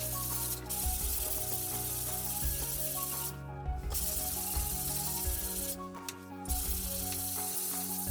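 Sanding of a wall: a continuous scratchy rubbing hiss that breaks off briefly twice, under background music with sustained notes.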